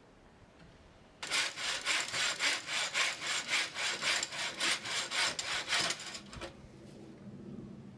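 Hand saw cutting through wood with quick, even strokes, about three a second. It starts about a second in and stops around six seconds.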